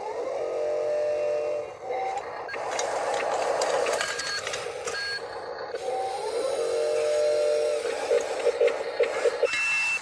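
Radio-controlled wheel loader and dump truck models running: a motor whine that rises in pitch and then holds steady, again and again as they drive, with a run of sharp clicks near the end.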